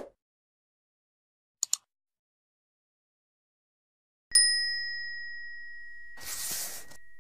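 A single bell-like ding struck about four seconds in, ringing on and slowly fading, with a short hiss near the end. A brief click comes earlier.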